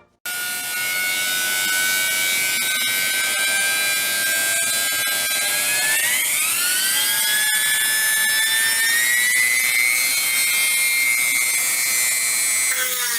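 Dremel rotary tool running at high speed against the steel of a mortise chisel, a steady whine that rises in pitch about six seconds in and then holds.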